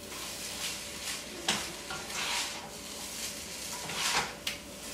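Fried rice being stirred in a frying pan on the stove, with irregular scraping strokes of the utensil against the pan over a light sizzle, as soy sauce is mixed in.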